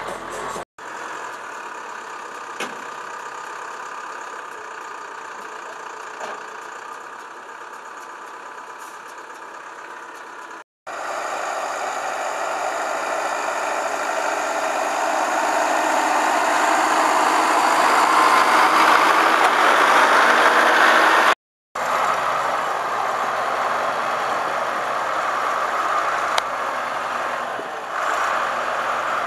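Tractor diesel engines running under load in three short clips, each cut off by a brief silence. First comes the hum of a tractor and mower heard from the cab. Then a tractor pulling a round baler over straw grows steadily louder. Last, a tractor works with its front loader in a manure heap.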